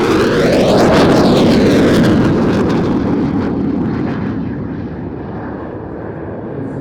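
Eurofighter EF2000 jet passing by, with a sweeping rush of engine noise that is loudest about a second in and then slowly fades as it moves away.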